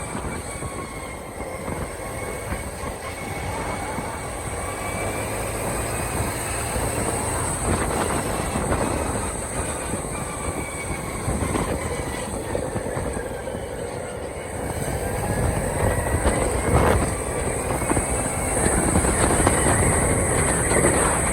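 A vehicle running steadily, with a few knocks and faint squeals that drift up and down in pitch, and getting louder near the end.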